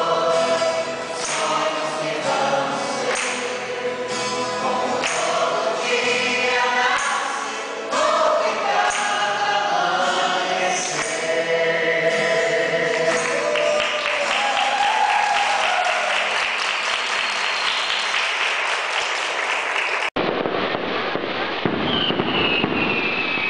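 Mixed choir of men and women singing, giving way after about thirteen seconds to several seconds of dense crackling noise. About three seconds before the end the sound cuts abruptly to fireworks crackling, with a falling whistle.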